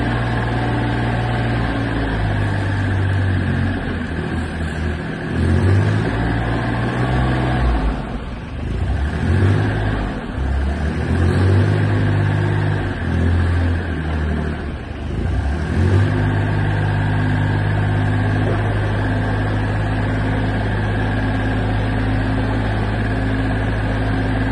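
Terex TA1EH high-tip dumper's engine running while its hydraulics bring the raised skip down. The engine note rises and falls unevenly for several seconds as the hydraulics work, then settles into a steady idle about 16 seconds in.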